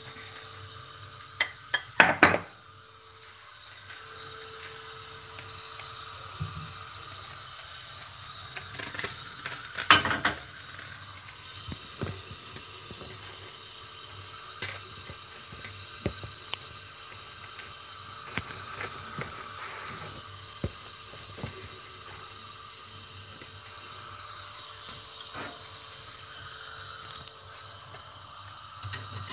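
Kitchen clatter of cookware being handled on a gas stove: sharp clanks and knocks, a cluster about two seconds in and the loudest around ten seconds, then scattered small ticks over a faint steady hiss.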